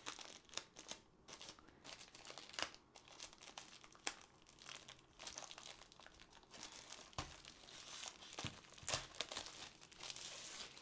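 Thin plastic sleeve crinkling and rustling as it is pulled and bunched off a rolled canvas, with irregular crackles and a few sharper snaps, busiest in the last few seconds.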